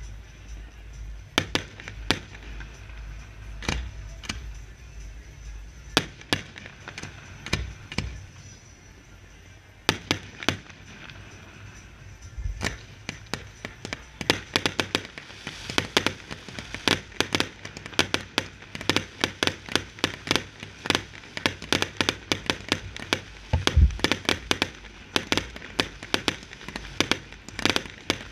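Fireworks display: separate sharp bangs of bursting shells a second or two apart, a short lull, then from about halfway through a dense, rapid crackle of reports as a barrage of rising comets and shells fires together.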